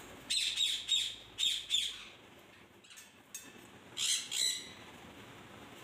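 Blue-and-gold macaw giving a few short, high squawks in the first two seconds and a longer call about four seconds in.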